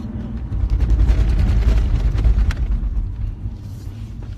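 A loud, rough rumble with rustling and knocks, from the phone's microphone being handled and moved around. It swells about half a second in and eases off after about three seconds, over the car's steady low road noise.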